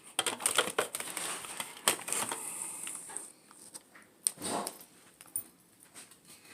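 Packaging rustling and crinkling, with scattered light clicks and knocks as accessories are pulled out and handled; a short louder rustle comes a little past the middle.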